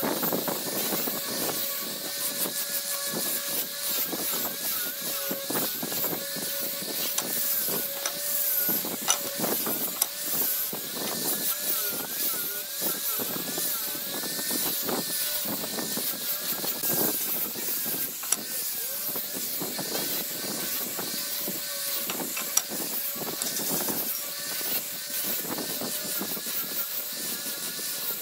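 Angle grinder with a sanding disc running continuously while it sands a curved wooden chair leg. Its motor whine wavers slightly in pitch as the disc is pressed into the wood, over a constant hiss of the abrasive on the wood.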